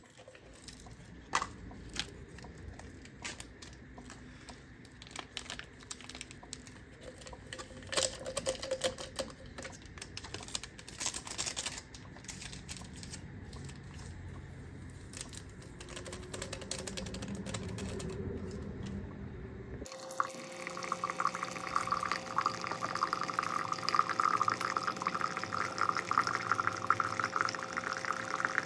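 Scattered clicks and handling noises, then from about 20 seconds in a steady hiss of water pouring into a container, with a faint steady hum beneath it.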